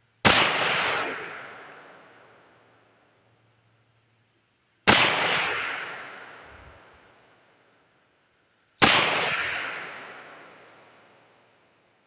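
CZ52 pistol firing 7.62×25mm Tokarev full metal jacket rounds in slow fire: three single shots about four seconds apart, each followed by a long echo that dies away over two to three seconds.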